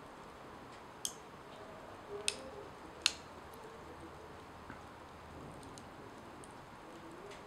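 A few sharp crackling clicks from a corn-dough tortilla smoldering to ash on a metal pan: three clear ones in the first half, then only faint ticks over a quiet background hiss.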